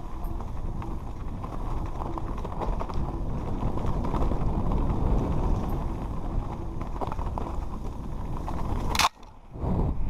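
A mountain bike rolling fast down a rocky dirt trail: a steady low rumble from the tyres, with the frame and parts rattling and knocking over stones and roots. The sound breaks off abruptly with a click about nine seconds in, goes briefly quiet, then returns.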